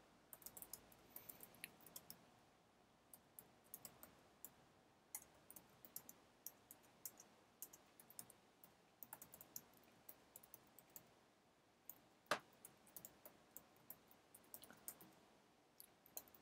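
Typing on a computer keyboard: faint, irregular keystrokes, with one louder key press about twelve seconds in.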